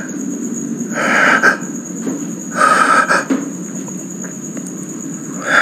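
Insects trilling steadily at a high pitch. Over them come several short hissy noises, each about half a second long and spaced a second or two apart, which are the loudest sounds.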